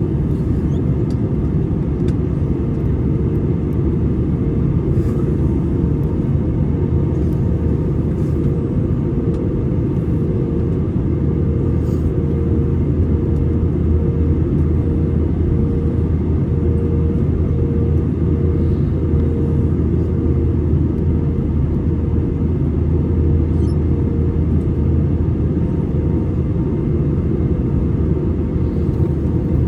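Airbus A320 cabin noise in flight: a steady roar of the engines and airflow, with a humming tone that pulses about once a second.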